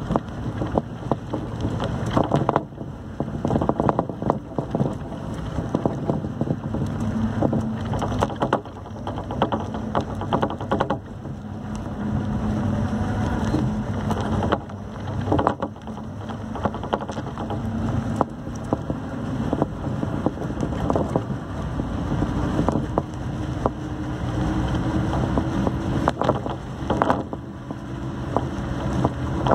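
Engine and road noise from inside a moving vehicle, with wind noise and frequent short knocks and rattles over the road surface. The engine note steps up in pitch about three quarters of the way through and stays higher.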